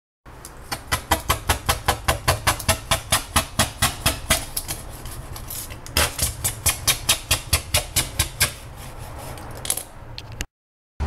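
Scouring sponge scrubbed quickly back and forth over a glass-ceramic hob, about four to five strokes a second, working off burnt-on grime. The scrubbing comes in two bouts with a short pause between them.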